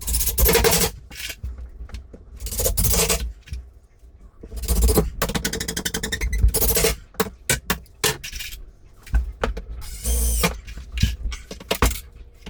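A cordless power driver driving screws through a wardrobe's top panel into the side panels, running in several short bursts with knocks and clicks in between.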